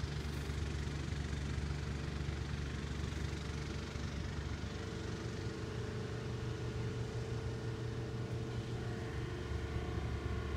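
Steady low mechanical drone of machinery running at a supermarket, the noise being complained of, with several held tones over the hum; a higher tone joins about four and a half seconds in.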